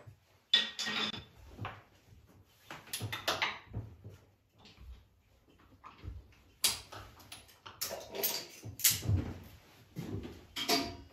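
Irregular light knocks, clicks and rustling of handling, about half a dozen sharper knocks spread through, with no machine running.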